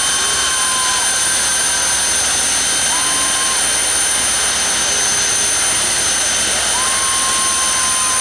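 Jet dragster's turbine engine running steadily at the start line: a loud, even roar with a high, steady whine on top.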